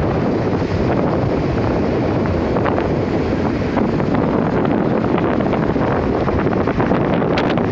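Wind buffeting the microphone: a loud, steady rushing noise with a few faint clicks.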